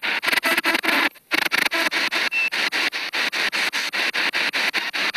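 Spirit box sweeping through radio stations, played through a handheld Altec Lansing portable speaker: a hiss of static and radio fragments chopped into about nine pieces a second, with a brief break a little over a second in.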